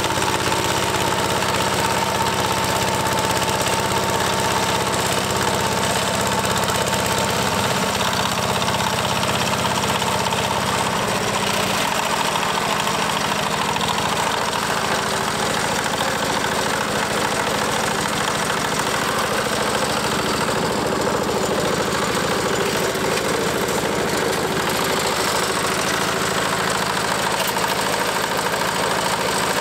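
Single-cylinder 8 hp diesel walk-behind tractor running steadily under load while its rotary tiller works the soil.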